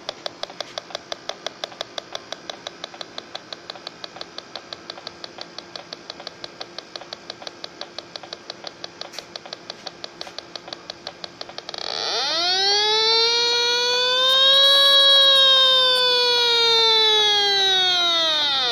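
Smart Sensor handheld refrigerant (freon) leak detector ticking rapidly, several beeps a second. About twelve seconds in it switches to a loud continuous alarm tone that rises and then slowly falls in pitch: the detector is sensing refrigerant gas at the probe.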